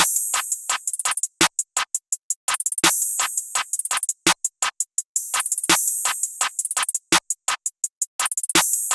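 Programmed trap drum loop: rapid hi-hat ticks with open-hat hits, and a snare layered with a clap landing about every second and a half. Drums only, with no melody or 808 bass.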